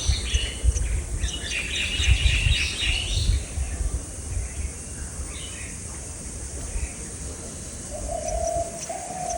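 Small birds chirping and twittering: a busy cluster of high calls in the first few seconds, then a few scattered chirps. A short, steady, lower-pitched call comes near the end, over a low rumble throughout.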